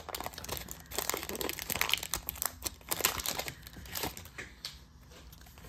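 Foil booster-pack wrapper crinkling in quick, irregular crackles as it is pulled open and the cards are slid out, dying down near the end.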